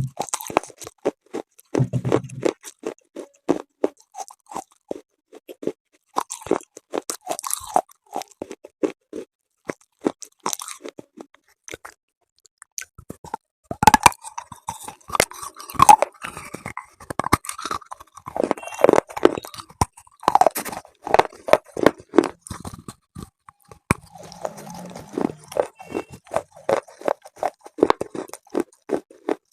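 Close-miked crunching and chewing of hard, chalky pieces, the kind of slate pencil and chalk eaten for ASMR: a dense run of crisp cracking bites with a short pause about halfway through, loudest just after it.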